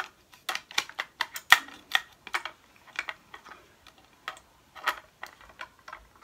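Irregular clicks and knocks of a Beretta 686 over-under shotgun being handled as its wooden fore-end is worked against the metal barrels, a few taps a second, the sharpest about one and a half seconds in.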